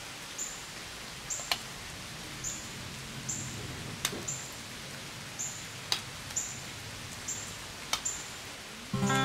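Carving knife shaving thin curls off a poplar spoon handle: a dozen or so short, hissy slicing strokes, with an occasional sharp click of the blade. Acoustic guitar music comes in right at the end.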